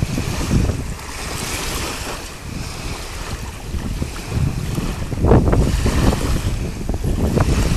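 Wind buffeting the microphone in irregular gusts, strongest about five seconds in, over the faint wash of small waves lapping on a sandy shore.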